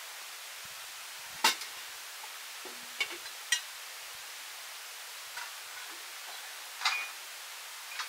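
About six short, sharp knocks at uneven intervals over a steady hiss. The loudest comes about one and a half seconds in, and another strong one near seven seconds.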